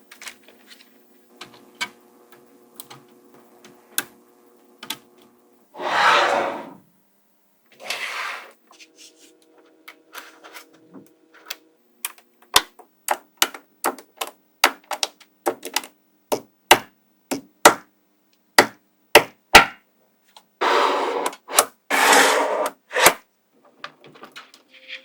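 Small magnetic balls snapping together with sharp clicks, sparse at first and then about two a second from midway, broken by a few longer clattering bursts of many balls shifting at once.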